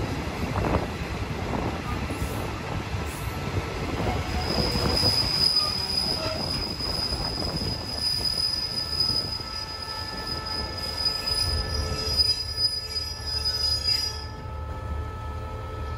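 Train running on the rails with a low rumble, and a steady high-pitched metal wheel squeal from about four seconds in that stops near the end.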